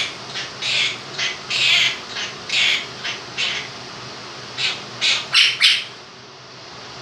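A Quaker parrot gives a string of about a dozen short, harsh squawks, the last few quick together, then stops near the end. Under it runs the steady hum of an electric fan.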